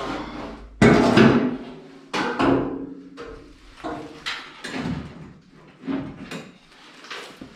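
A string of sharp metallic knocks and clanks, about seven of them, each ringing briefly afterwards: metal parts being handled and set down in a workshop. The loudest comes about a second in.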